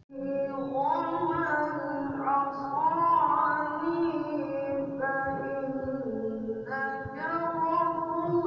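Melodic Quran recitation (qira'at) by a reciter's solo voice, sung in long, held, ornamented phrases and starting abruptly; a new phrase begins near the end.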